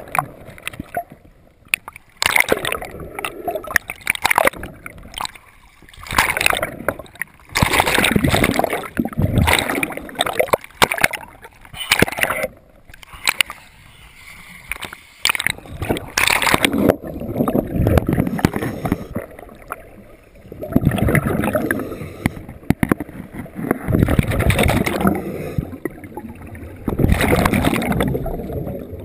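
Water sloshing and gurgling around a camera bobbing in and out of the water at the surface, with repeated rushes of scuba air bubbles every few seconds.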